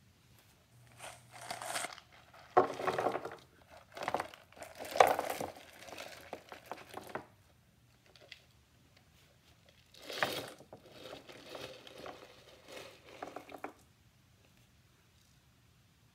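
Crinkling and rustling as items are handled and rummaged through out of view, in two spells of a few seconds each with a pause between.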